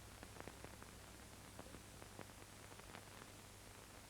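Near silence: faint steady hiss and low hum from the recording, with scattered small irregular clicks.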